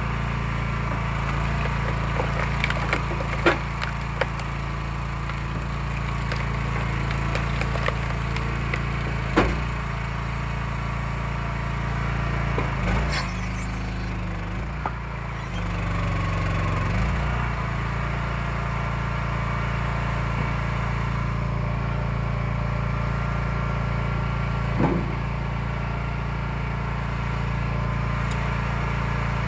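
Eastonmade 12/22 hydraulic wood splitter at work: its engine runs steadily while logs are split, with wood cracking and splintering and several sharp cracks and knocks of splitting rounds and falling pieces. For a few seconds about halfway through, the engine note shifts.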